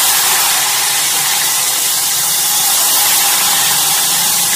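Chilled ghevar batter poured in a thin stream into very hot ghee, frying with a loud, steady sizzle as the ghee froths up across the pot.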